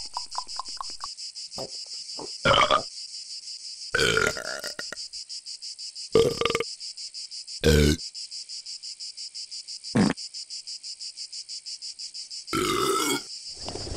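A man burping loudly, about six belches a second or two apart, the last one longer with a wavering pitch. Steady chirring of insects runs underneath.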